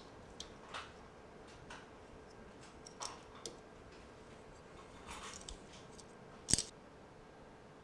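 Small scattered clicks and light scrapes of an iPhone logic board and display being handled and fitted into a metal iSocket board-test fixture, with one sharper click near the end.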